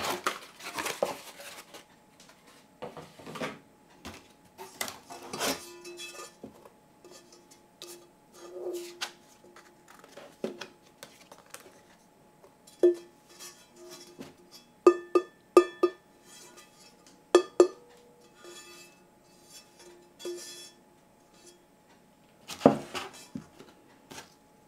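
Cardboard packaging scraping and rustling as a 12-inch Netherton Foundry carbon steel frying pan is handled in its box. In the middle come several sharp knocks on the pan, each leaving a steady metallic ring.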